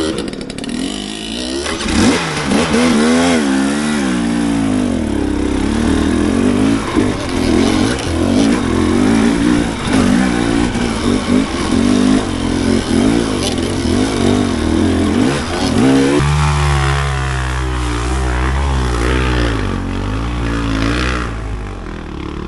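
Dirt bike engine revving up and down as the throttle is worked on a trail. About sixteen seconds in, a deeper, steadier engine note takes over.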